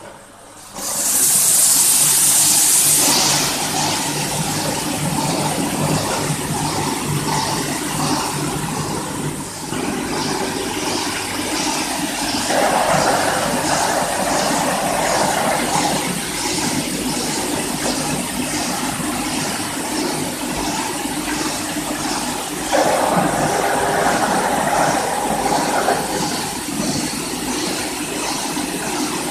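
Adhesive tape slitting and rewinding machine running: a steady mechanical noise with a faint regular ticking about one and a half times a second. A loud hiss about a second in lasts some two seconds, and two louder stretches of rough noise come about halfway through and again near three quarters of the way.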